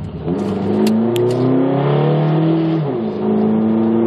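2006 Mitsubishi Eclipse GS's 2.4-litre four-cylinder engine pulling at about half throttle. The revs climb for over two seconds, drop sharply at a gear change about three seconds in, then climb again. The engine is misfiring on cylinder 4 because of a vacuum leak at a missing fuel injector insulator.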